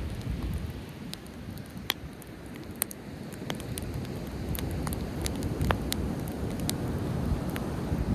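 Driftwood campfire crackling, with scattered sharp pops and snaps, over a steady low rumble of ocean waves.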